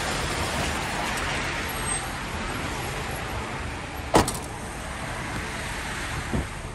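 A car driving past close by, its engine and tyre noise fading over the first couple of seconds. A sharp click comes about four seconds in, and a fainter one near the end.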